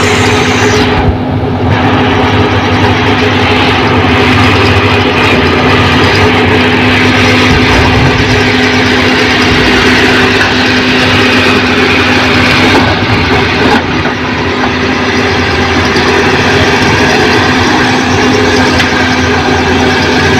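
Heavy diesel engine of construction machinery running steadily and loudly, with a steady droning hum over the engine noise.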